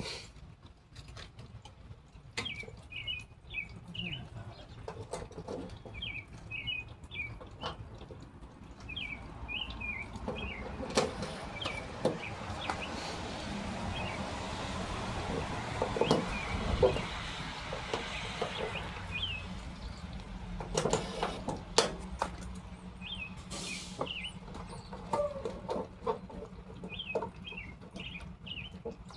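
A small songbird chirping in quick runs of three or four notes, repeated every couple of seconds. Scattered clicks and knocks of handling run under it, with a rushing noise that swells and fades in the middle and a steady low hum near the end.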